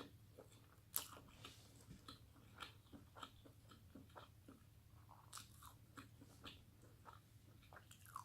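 A person eating, heard faintly: chewing and small wet mouth clicks at an irregular pace, with one sharper click about a second in.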